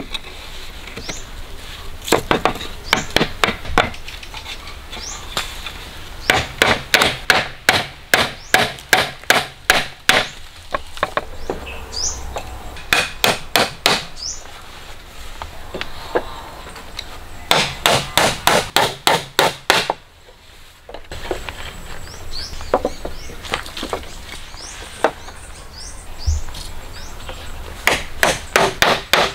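Runs of quick tool strikes on wood, about four a second, with pauses of a few seconds between the runs.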